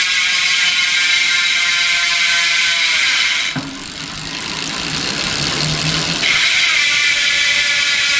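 Sagmit M120 freewheel hub (6 pawls, 3-tooth engagement) clicking in a loud, fast buzz as the rear wheel freewheels. The buzz drops away about three and a half seconds in and comes back loud about six seconds in. The once fine, smooth click is now clanky, a hub that has loosened up after about a month and a half of riding.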